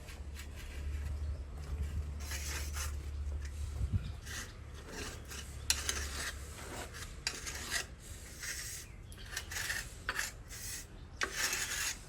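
Irregular rubbing and scraping strokes on wood, in short repeated passes, during a wood-glue and cypress-sawdust filler repair of timber. A low steady hum sits under the first half and stops about six and a half seconds in.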